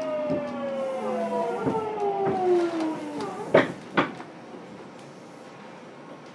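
Hitachi GTO-thyristor VVVF inverter of a Fukuoka City Subway 2000 series train whining in several tones that fall steadily in pitch as the train brakes, fading out about three seconds in. Two sharp knocks follow a few tenths of a second apart as the train comes to a stop, leaving a low steady hum inside the car.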